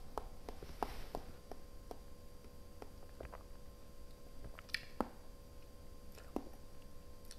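Faint, scattered wet clicks and smacks of a mouth tasting wine, as the sip is worked around the mouth, over a faint steady electrical hum.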